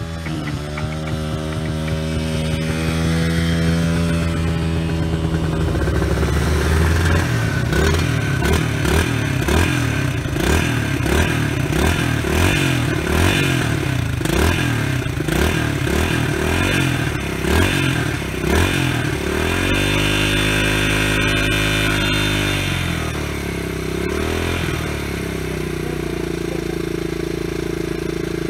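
Small dirt bike engines revving, their pitch rising and falling over and over as the bikes ride around, steadying near the end.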